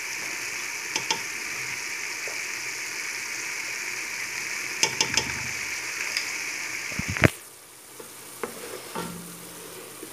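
Chopped onion and spices sizzling in oil and butter in a pot, with a few sharp knocks of a wooden spoon against the pot. After a louder knock about seven seconds in, the sizzle is much quieter.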